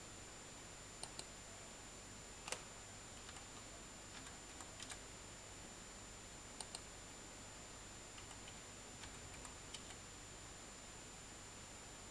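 Faint computer keyboard keystrokes and mouse clicks while a username and password are typed into a login box: short runs of soft taps and a few sharp clicks, some in quick pairs, over a faint steady hiss with a thin high whine.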